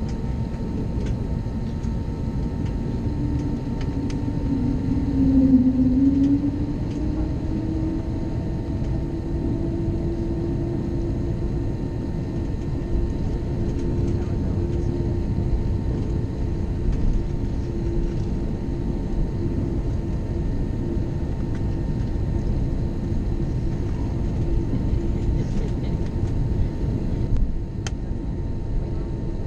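Cabin noise inside an Airbus A321neo taxiing on the ground: a steady rumble with the hum of its Pratt & Whitney PW1100G geared turbofans. The hum rises in pitch and grows louder about five seconds in, then holds steady. There is a small click near the end.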